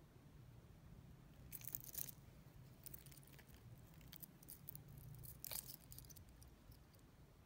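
Metal links of a two-tone steel watch bracelet clicking and rattling as they are handled, in short clusters about one and a half, three and five and a half seconds in, over a faint steady low hum.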